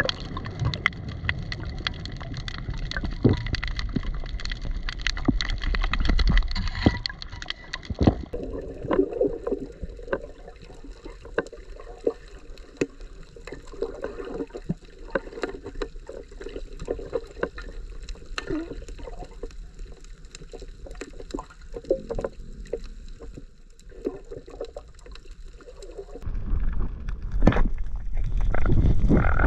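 Underwater reef sound heard through a camera housing: a constant crackle of sharp clicks, typical of snapping shrimp on a coral reef, over muffled water movement. Near the end a louder low rush of water comes in.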